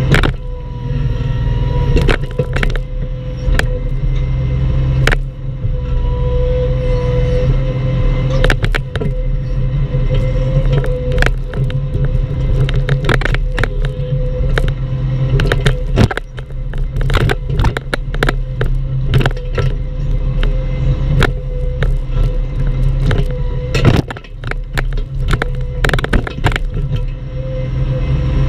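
Bobcat E10 mini excavator working a palm stump: its diesel engine runs steadily with a steady high tone over it, broken by frequent sharp knocks and scrapes of the bucket against the stump and ground.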